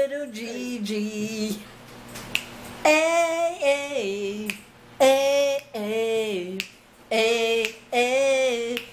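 A woman singing a song without accompaniment, in phrases of long held notes that slide between pitches, with a few sharp clicks between them.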